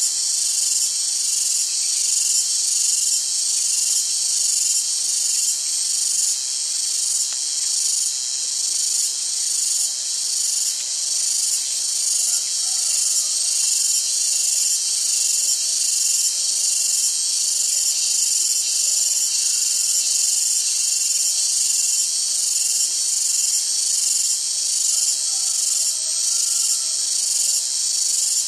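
Loud, high-pitched insect chorus pulsing steadily about one and a half times a second.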